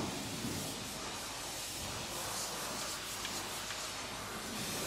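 Steady hissing from cleaning equipment working in an escalator's step track, with a few faint clicks.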